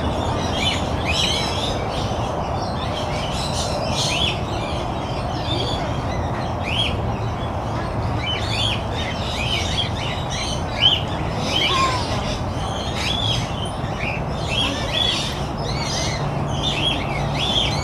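Several birds chirping and chattering, with many short calls overlapping without pause over a steady low background hum.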